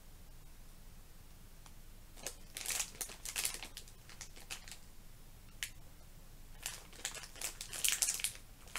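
Crinkly plastic packet of sweets being handled and worked open, crackling in short irregular bursts that begin about two seconds in.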